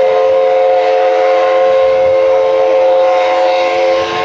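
Whistle of Essex Terminal 9, a 0-6-0 steam locomotive, blowing one long steady chime of several notes, its sound changing slightly near the end as one note drops out.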